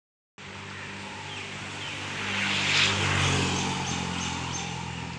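A motor vehicle's engine running as it passes close by, growing louder to a peak about three seconds in and then easing off slightly. A few faint, short high chirps sound near the middle.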